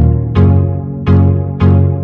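Background music: a keyboard playing a steady run of struck, decaying notes, about two a second.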